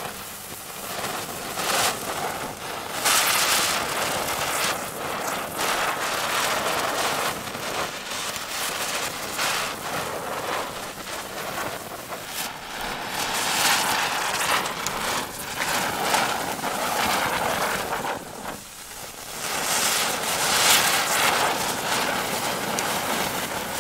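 Several ground spinner fireworks spinning and spraying sparks with a continuous sputtering hiss that swells and fades several times as they burn.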